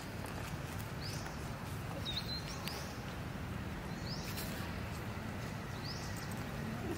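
A bird calling in the background, a short call that rises and falls, repeated every second or two over a steady low outdoor rumble.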